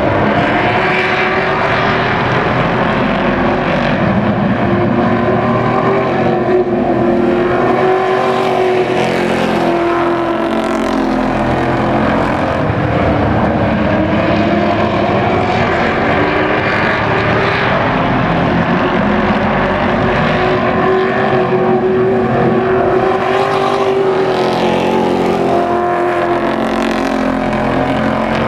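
A pack of race trucks running laps on a short oval. Several engines sound at once, and their pitch rises and falls over and over as the field circles the track.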